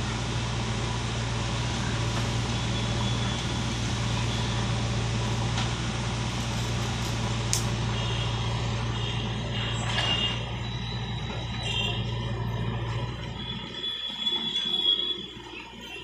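JCB 3DX backhoe loader's diesel engine running steadily while the backhoe arm digs, with a couple of sharp clicks midway. Near the end the engine's low note drops away.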